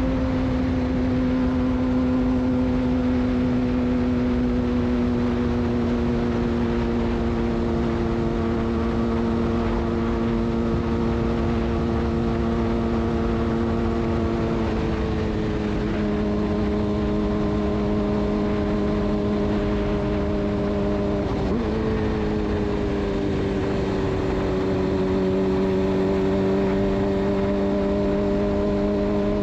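Suzuki GSX-R600 inline-four through a de-catted Yoshimura exhaust, running at steady high revs while riding. The engine note eases slowly lower, drops a step about halfway through and dips briefly about two-thirds through. A low wind rush runs underneath.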